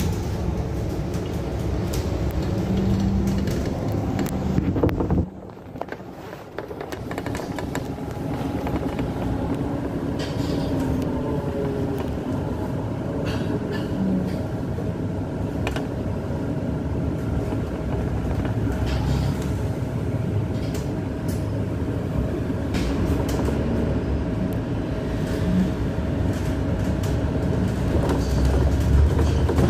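Interior sound of a moving city bus: engine and road noise with rattling and clicking of the bodywork and fittings. It dips briefly about five seconds in, and a faint steady whine runs through the middle.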